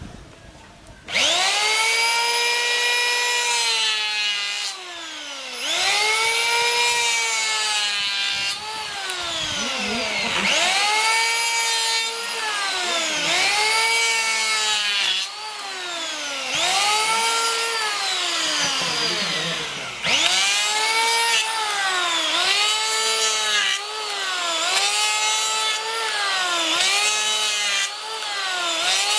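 A Kyuho K282 580-watt electric hand planer starts up about a second in with a high motor whine. Its pitch sags and recovers again and again, roughly every two seconds, as the blades are run through wood in repeated passes.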